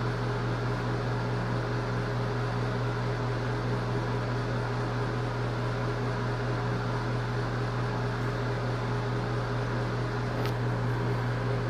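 Steady low hum with an even hiss, like a large room's ventilation fan running, with one faint click near the end.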